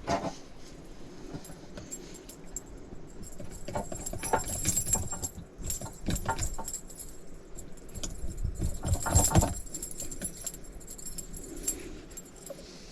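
Metallic jangling and clattering of fishing gear being handled, in a few short bursts, the loudest about nine seconds in.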